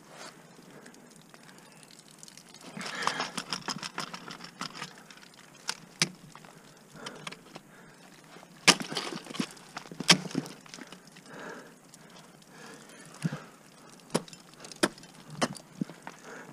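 Ice tools and crampons striking waterfall ice during a lead climb: a run of quick clattering hits about three to four seconds in, then single sharp placements, the loudest about nine and ten seconds in.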